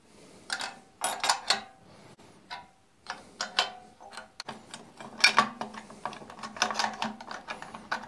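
Steel clamps and aluminium workpieces being handled on a cast-iron drill press table: irregular metallic clicks, clinks and knocks as the clamping setup is loosened and taken apart.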